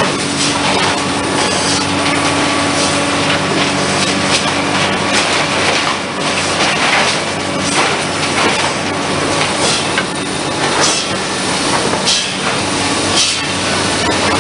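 Cedar shake mill machinery running: a loud steady machine hum with frequent irregular wooden clattering and knocks.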